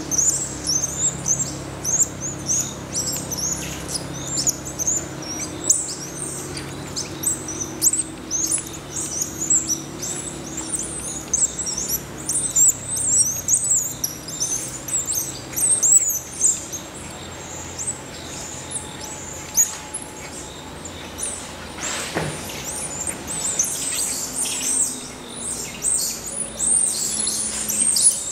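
A troop of squirrel monkeys chirping and twittering: a rapid, unbroken stream of short, high-pitched peeps. A single sharp knock sounds about three-quarters of the way through.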